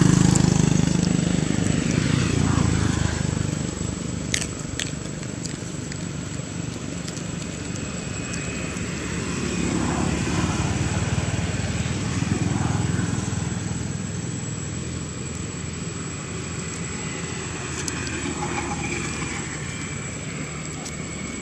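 Low engine drone of a distant vehicle or aircraft, loudest at the start and swelling again about ten seconds in, with a thin steady high tone above it.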